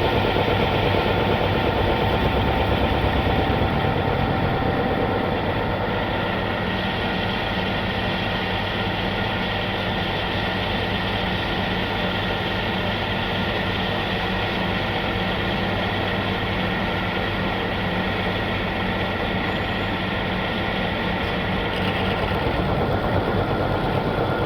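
Milling machine cutting a large M125 steel nut: a steady machine noise with a fast, even cutting rattle and several steady whining tones. It gets somewhat quieter about four seconds in and louder again near the end.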